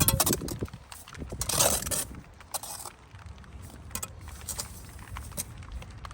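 Bricklaying work: a steel trowel scraping mortar and clinking against brick, in short irregular scrapes and light clinks, with a louder scrape near the end.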